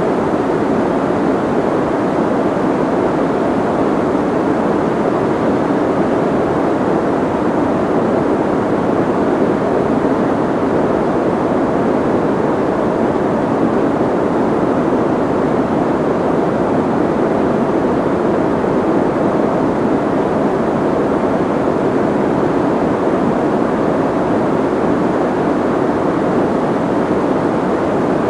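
Soft white noise: a steady, even rushing hiss, fullest in the lower middle and light in the high treble, unchanging throughout.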